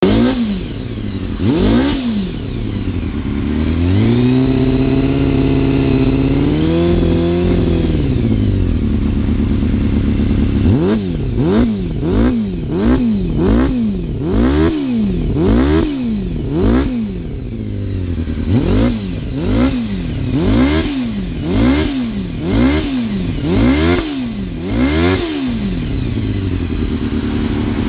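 Honda CBR250RR with a Bikegussi Moto Racing aftermarket exhaust, revved hard: one rev, then revs held high for a few seconds, then a long run of quick sharp throttle blips about one a second, dropping back to idle between them and near the end.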